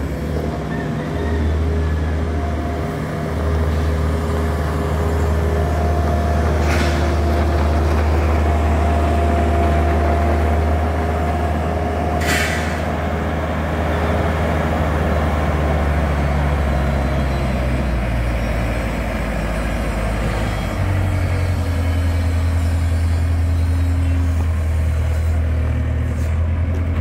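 John Deere skid-steer loader's diesel engine running steadily, its pitch shifting about two-thirds of the way through as the revs change. Two short hisses partway through.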